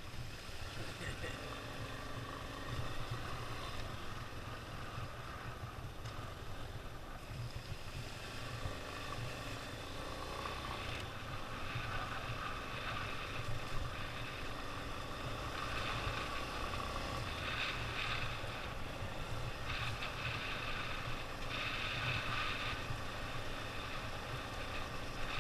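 Motorcycle engine running steadily while riding along a dirt trail, with wind buffeting the microphone; the noise swells somewhat in the second half.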